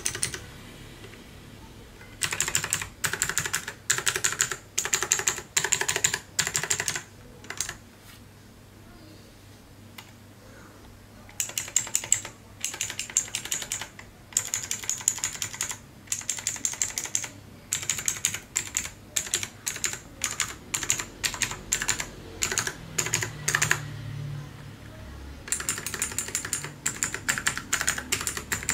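Typing on a Leaven K550 mechanical keyboard with blue clicky switches: rapid runs of sharp clicking keystrokes in bursts, with a few pauses of a second or more, the longest a few seconds in.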